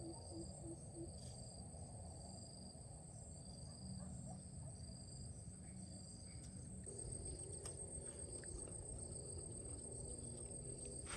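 Insects trilling steadily: a high-pitched, pulsing chorus over a low background hum.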